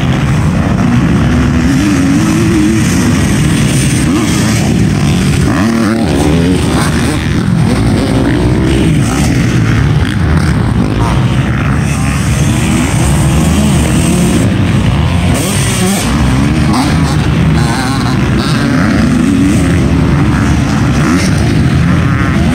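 Several motocross dirt bikes running hard on the track at once, their engines overlapping and rising and falling in pitch as riders open the throttle and shift.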